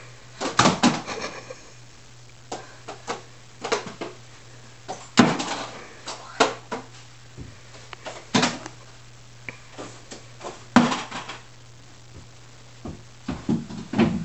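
Irregular knocks, bumps and thumps of objects being moved and bumped around a TV stand and floor as things are shifted by hand, over a steady low hum.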